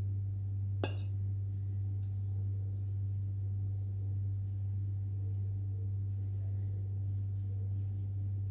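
Steady low hum at one pitch that holds without change, with a single light click about a second in.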